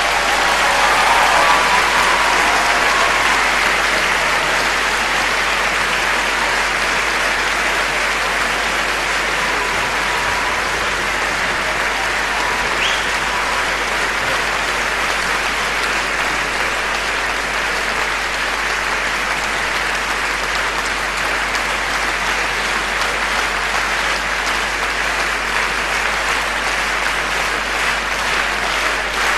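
Large concert-hall audience applauding, dense and steady throughout.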